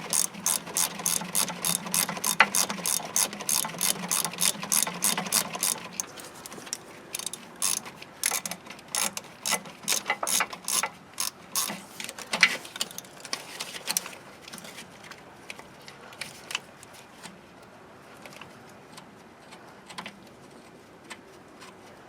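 Socket ratchet with a 13 mm deep-well socket clicking rapidly, about four clicks a second, as a starter mounting bolt is backed out. About six seconds in the clicking slows and turns irregular, then thins to occasional faint ticks in the second half.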